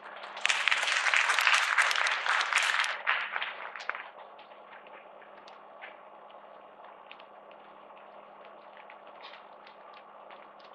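Audience applauding: a short burst of clapping for about three seconds that dies away, followed by a few scattered claps.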